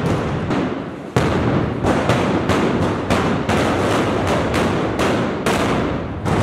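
Black-powder arquebuses firing blank charges in a ragged, continuous volley. The sharp reports come irregularly, several a second, and overlap each other's echoing tails. A loud shot breaks a brief lull about a second in.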